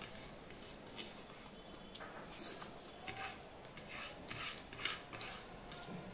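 Fingers scraping and wiping across a plate to gather the last of the food, in a series of short, irregular scrapes and light clicks.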